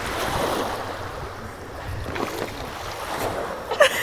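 River water sloshing and washing against the bank, with wind on the microphone. A short voice-like call cuts in near the end.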